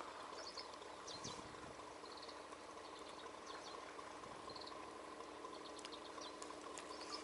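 Faint high chirps of small birds, several short runs of quick notes, over a quiet lakeside background with a faint steady hum.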